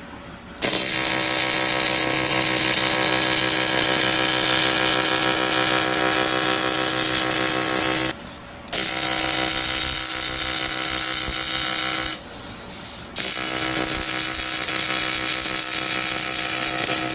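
AC TIG welding arc on aluminium from an HTP Invertig 221 inverter: a steady, even buzz with hiss. The arc is struck three times, cutting out briefly about eight seconds in and again for about a second around twelve seconds in.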